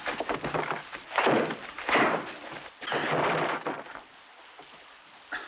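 Film fight sound effects: three loud crashing, scuffling impacts of bodies against wood in the first three and a half seconds, then a quieter steady hiss.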